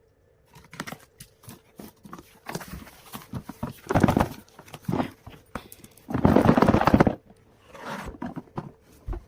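Irregular handling noise: a string of knocks and clicks with bursts of rustling, the loudest lasting about a second, roughly six seconds in.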